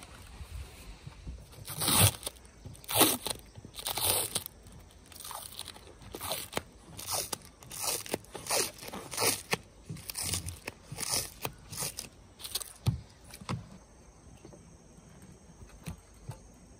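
Heat-resistant tape being peeled off its roll and pressed down by hand along the edge of a car-roof solar panel: a series of short crackling rips and scrapes, about one or two a second, then stopping.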